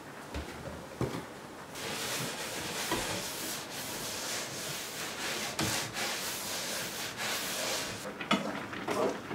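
A cloth wiping back and forth across a wooden tabletop, a steady rubbing hiss that starts about two seconds in and runs for around six seconds. A few light knocks come before it, and a few sharper knocks, the loudest sounds, come near the end.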